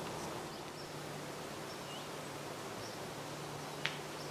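Quiet forest ambience: a steady hiss with a few short, faint, high bird chirps, and one sharp click near the end.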